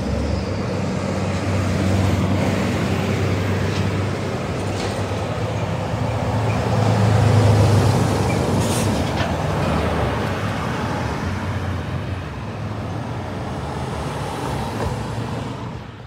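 Heavy road traffic: truck engines droning and tyre noise from vehicles passing on a busy road, loudest about halfway through as a container semi-trailer goes by close.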